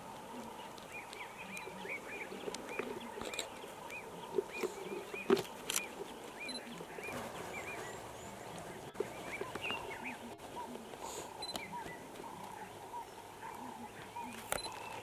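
Lions feeding at a buffalo carcass, with a few sharp tearing or crunching noises around the middle. A bird calls in the background with a quick series of short chirps, about two or three a second, for the first several seconds.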